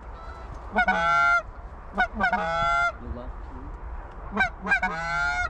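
Canada goose honking: three groups of loud, drawn-out honks, each breaking sharply upward and then held for about half a second, about a second in, near the middle and near the end.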